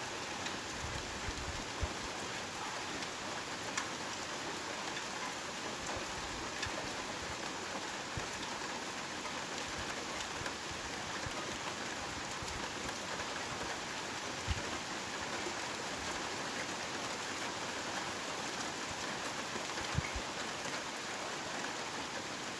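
Heavy rain falling steadily, an even hiss with a few sharper taps of drops landing close by.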